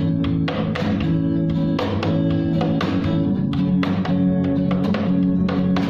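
Acoustic guitar strummed in a steady rhythm, playing the chords of a song intro with no singing.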